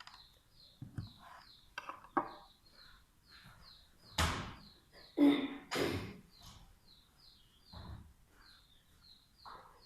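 Scattered knocks and thunks of kitchen work as a lemon is handled for a honey and lemon mix, the loudest about four seconds in and again just after five seconds. A small bird chirps over and over throughout.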